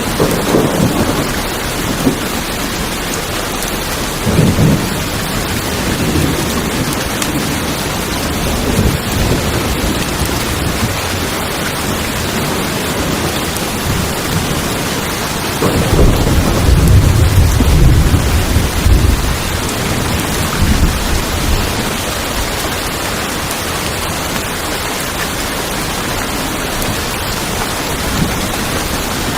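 Steady rain on tin roofs, with rolls of thunder rumbling over it several times; the longest and loudest roll comes a little past halfway.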